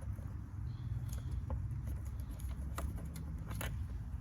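Light scratching and faint clicks of hands working a plastic engine cover loose, over a steady low hum.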